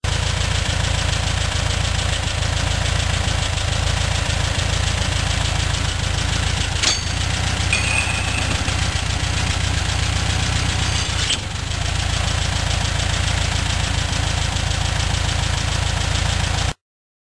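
Air-cooled engine idling steadily while its fan belt is levered onto the generator pulley with a screwdriver, with a click about 7 s in and a brief high squeal about 8 s in. The sound cuts off suddenly near the end.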